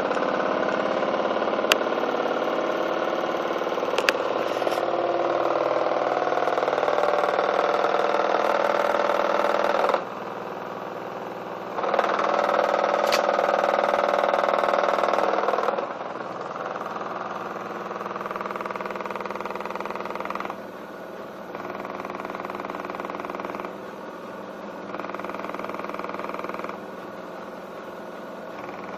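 Miele WKB130WCS washing machine running with a loud vibration noise, which the owner blames on the detergent drawer and its weak plastic connectors. It drops off sharply about ten seconds in, returns loud for a few seconds, then falls to a lower noise that steps up and down every couple of seconds, with a few sharp clicks early on.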